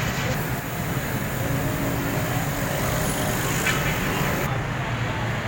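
Steady street traffic noise, a continuous low rumble of vehicles with no distinct events.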